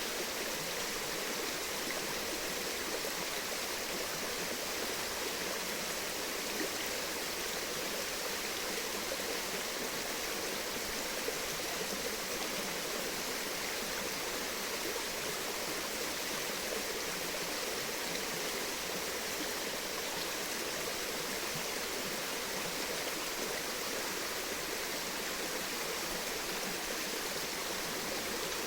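Steady rush of flowing water, an even hiss without breaks or changes.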